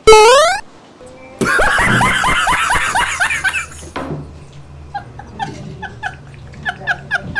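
A short, loud, rising whistle-like sound effect, then about a second later a loud burst of laughter in rapid repeated 'ha' notes, about six a second. It gives way to a quieter run of short chirping notes.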